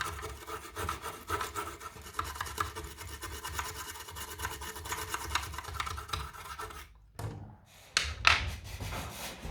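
Rapid scratchy scrubbing on a computer circuit board being cleaned with isopropyl alcohol, continuous for about seven seconds, then a few separate, louder strokes near the end.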